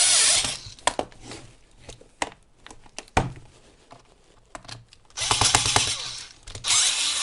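Electric screwdriver running in short spells, driving screws into the battery case, with clicks and knocks of handling in between.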